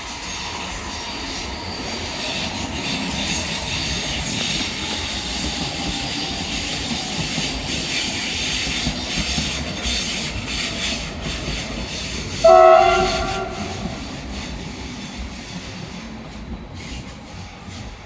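S-Bahn Class 423 electric multiple unit passing, its running noise building and then fading, with wheels clicking over rail joints. One short horn blast, about a second long, sounds about two-thirds of the way through.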